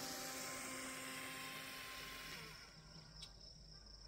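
Small RC jet boat's electric motor whining steadily over the hiss of its water-jet spray as it pulls away across the water, fading out after about two and a half seconds.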